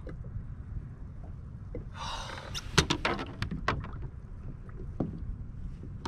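Fishing kayak at sea, with a steady low rumble of wind and water on the microphone. About two seconds in there is a short breathy rush, then a quick cluster of sharp clicks and knocks as fishing gear is handled on the kayak, and one more knock near the end.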